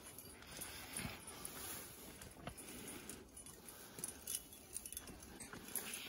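Faint light clinks of metal climbing gear with scattered soft ticks and the rustle of brush, as a climber comes down the rope through the scrub.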